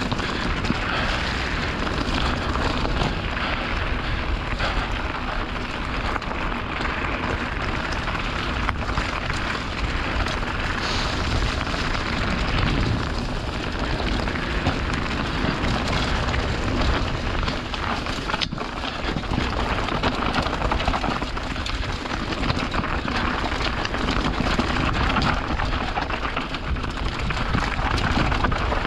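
Mountain bike riding fast down a rocky gravel trail: tyres crunching and rattling over loose stones, with wind on the microphone as a steady low rumble.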